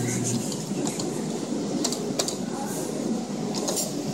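Arcade room noise: a steady din of machines and faint voices, with a few sharp clicks about two seconds in and again near the end.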